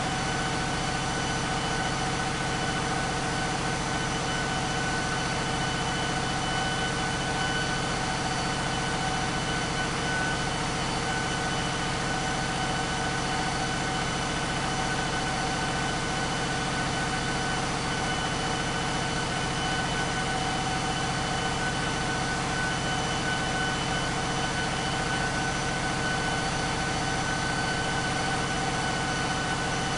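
Caterpillar 3516B sixteen-cylinder diesel engine running steadily on an engine dyno, at an unchanging speed, with several steady whining tones over a deep drone.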